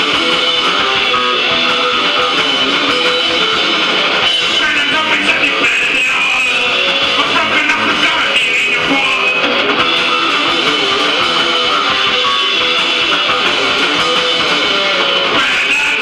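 Loud hardcore punk song led by strummed electric guitar.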